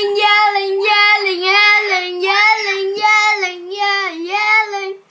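A child's high voice singing a string of short syllables on nearly one pitch, then stopping abruptly near the end.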